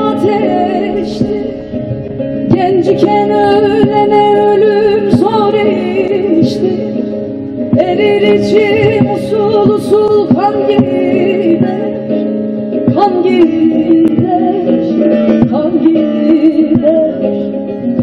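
Turkish folk music played on a bağlama, plucked and strummed through the stage PA.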